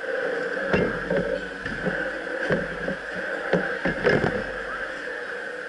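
Metal fork and spoon clinking and scraping against a plate, about eight short knocks over the first four seconds, over the steady hum of a busy food court.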